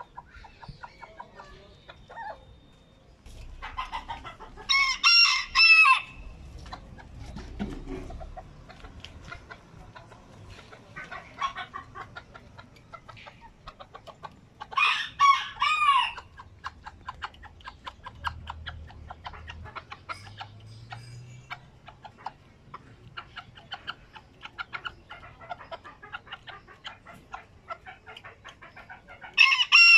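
Barbu d'Anvers bantam rooster crowing three times, each crow about a second and a half long and roughly ten seconds apart. Between the crows there is soft clucking and quick clicking.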